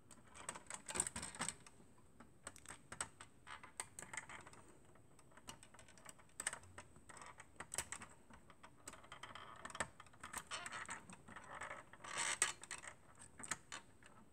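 Fingers handling a 1:18 scale Ford GT90 model car: faint irregular clicks, taps and short scrapes of its plastic body parts as the rear engine cover is worked open.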